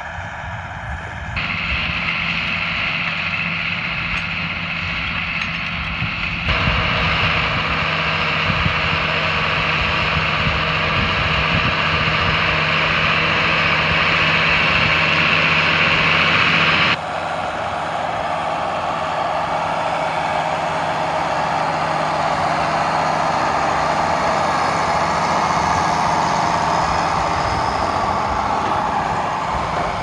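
International Harvester tractor engine running steadily under load while pulling a New Holland small square baler through a hayfield. The sound changes abruptly in level and tone a few times.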